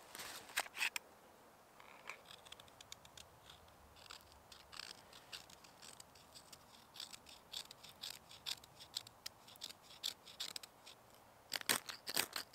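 Dry twigs and small sticks being handled and laid into a campfire lay: light clicks and crackles throughout, with sharper clusters of snaps about half a second in and again near the end.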